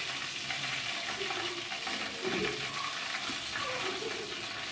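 Fish pieces deep-frying in hot oil in a kadai, giving a steady sizzling hiss.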